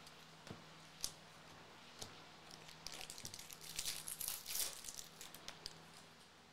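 A few faint clicks, then a foil trading-card pack crinkling and tearing as it is ripped open, loudest about four seconds in.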